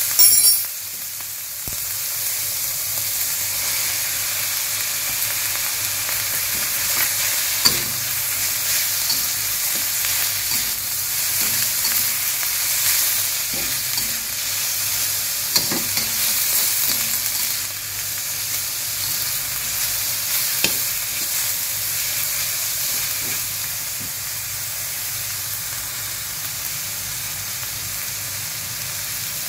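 Meat, onion and bok choy sizzling in a hot stainless-steel wok as a metal spatula stirs and scrapes, with a steady hiss. There is a louder burst of sizzle at the very start and a few sharp clicks of the spatula against the wok.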